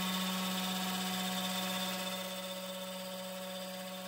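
Taig micro lathe headstock and its motor running at a steady speed, turning a center drill that is being fed into the hardened steel arbor: an even motor hum with higher steady tones above it, easing slightly in level.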